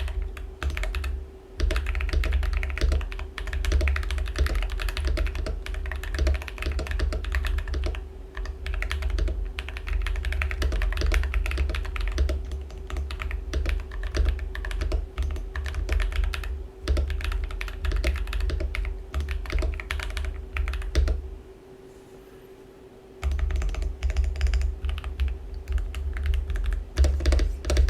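Fast, steady typing on a Rebel 60 mechanical keyboard with lubed Feker Holy Panda tactile switches and ABS keycaps, each keystroke a click with a deep bottom-out thock. Typing stops briefly about three quarters of the way through, then resumes.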